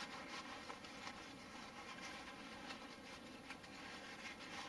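Faint rustling and crinkling of a blue shop towel rubbed around a Glock 19 pistol barrel to wipe its outside clean.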